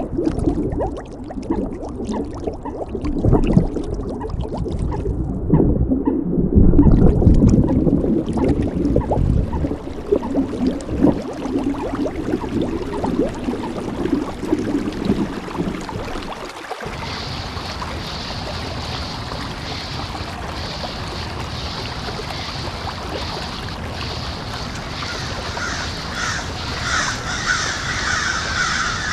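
Nature soundscape: a dense, low crackling and gurgling noise cuts off abruptly about two-thirds of the way through. A steadier hiss follows, with birds calling repeatedly and growing louder near the end.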